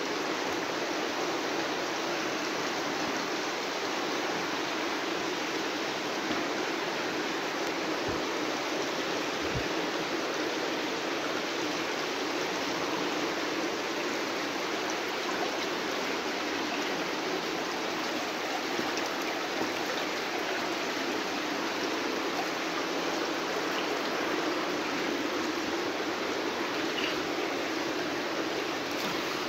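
Water running steadily in a cave, an even rushing hiss with no breaks.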